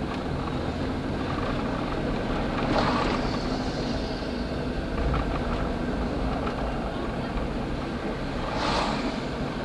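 Steady running rumble of a streetcar rolling along street track, with two brief hissing swells, one about three seconds in and one near the end.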